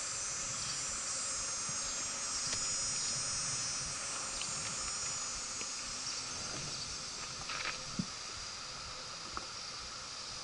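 Insects calling steadily in a high, continuous trill, with a few faint clicks and one sharper click about eight seconds in.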